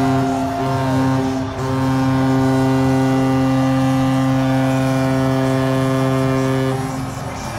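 Hockey arena goal horn sounding for a home-team goal: a few short blasts, then one long steady blast that cuts off near the end.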